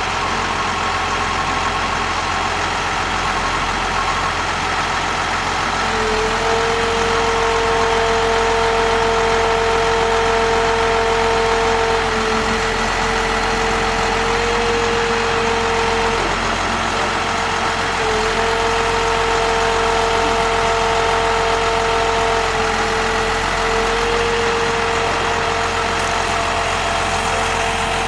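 A small engine running steadily at an even speed. About six seconds in, a strong steady whine comes in over it, drops out briefly in the middle and then returns.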